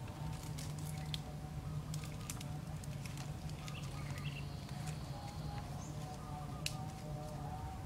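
Birds calling, including dove-like cooing, over a steady low hum, with scattered light clicks and rustles of bamboo poles and fibre cord being handled as a pole is lashed to a post. The sharpest click comes near the end.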